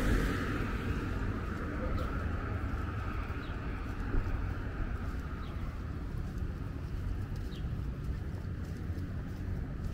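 Street ambience: a car passing and fading away over the first few seconds, then a steady low traffic rumble with a few faint, short high sounds scattered through.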